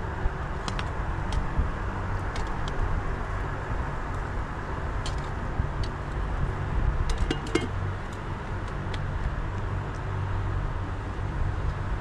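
Steady low rumble and hiss of wind on the microphone outdoors, with a few scattered sharp clicks and taps, a small cluster of them about seven seconds in.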